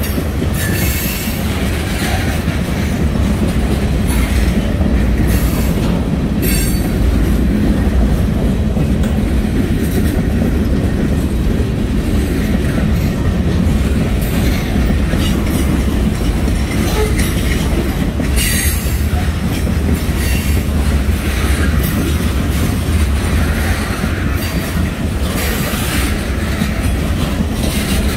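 Freight train tank cars and boxcars rolling past close by: a steady, loud rumble of steel wheels on rail, with irregular clicks as the wheels cross rail joints.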